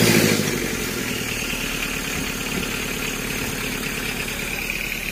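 Toyota 2C four-cylinder diesel engine just after starting on its newly fitted timing belt: the revs drop in the first half second, then it idles steadily. The mechanic says it now only needs a little adjustment.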